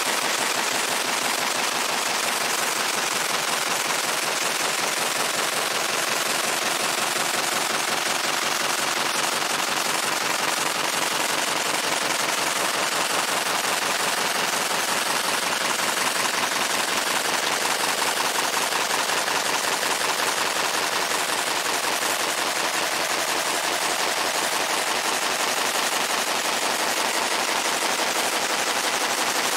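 Fiber laser engraving the steel face of a sledgehammer head: a continuous, rapid crackle as the pulsed beam ablates the metal.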